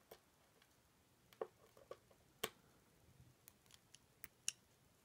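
Faint, scattered small clicks of steel tweezers and lock pins tapping against an ASSA Twin 6000 lock cylinder as a spring and driver pin are loaded into a pin chamber. There are about eight clicks at irregular intervals; the sharpest comes about two and a half seconds in, and another near the end.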